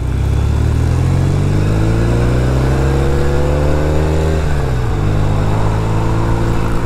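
Norton Commando parallel-twin engine accelerating, its pitch rising for about four seconds, then dropping at an upshift a little past halfway and running steadily in the higher gear.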